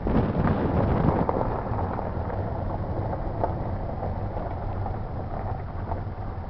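Wind buffeting the camera microphone: a steady rumble with a few crackles, a little stronger in the first second or so.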